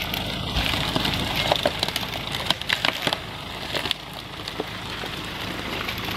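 Ford Ranger 2.2 diesel pickup's engine running at low revs as the truck creeps over felled bamboo, with many sharp crackles and snaps of dry bamboo and twigs breaking.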